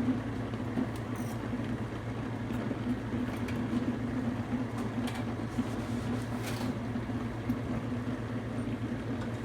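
Steady low hum of a dishwasher running, with a few faint clicks.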